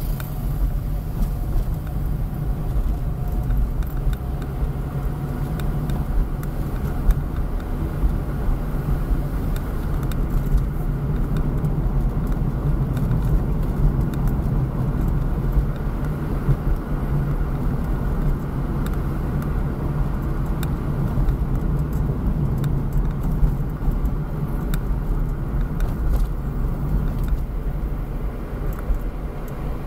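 Car driving at a steady speed on a rough asphalt road, heard from inside the cabin as a steady low engine-and-tyre drone. Scattered faint clicks and knocks sit on top of it.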